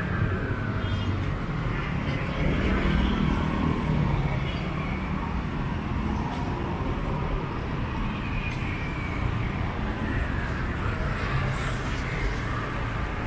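City street traffic: a steady rumble of engines and tyre noise, with vehicles passing by now and then.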